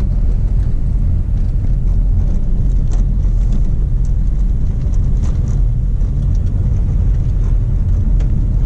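Car driving on a gravel road, heard from inside the cabin: a steady low rumble of tyres and engine, with a few faint ticks.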